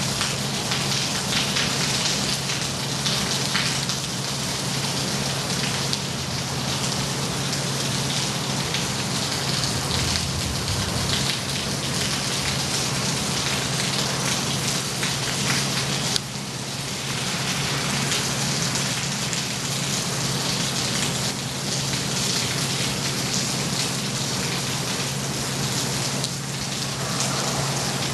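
Steady heavy rain falling during a thunderstorm, many drops pattering on surfaces, with a short dip in level about halfway through.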